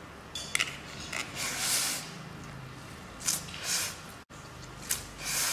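A person slurping instant noodles close to the microphone: several hissy slurps, the longest about one and a half seconds in, others about three and a half seconds in and near the end.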